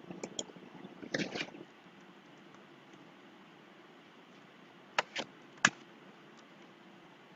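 A few short, sharp clicks, like computer keyboard or mouse clicks, over a faint steady hum: a small cluster about a second in, then three quick clicks a little after the middle.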